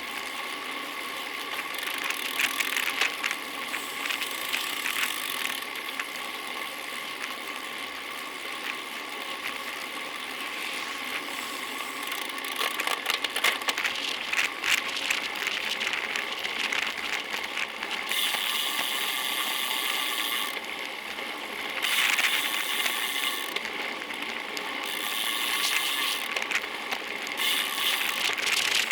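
Bicycle freehub ratcheting as the rider coasts: a fast run of clicks that comes and goes, over a steady rushing noise.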